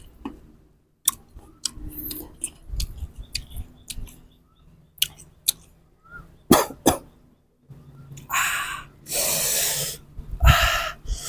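Crisp clicks and crunches of raw green mango being chewed, then from about eight seconds in, three loud hissing breaths drawn and blown through pursed lips against the burn of chili salt.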